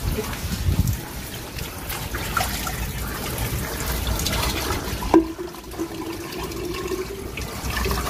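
Water running and splashing on a wet tiled floor around a water-filter tank, with a steady hum that comes in about five seconds in and holds.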